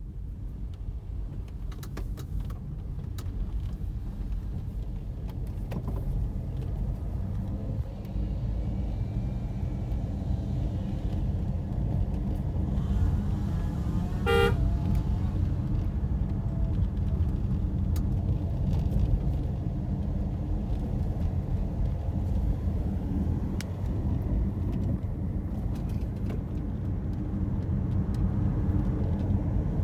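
Road vehicle running with a steady low rumble, with one short horn toot about halfway through.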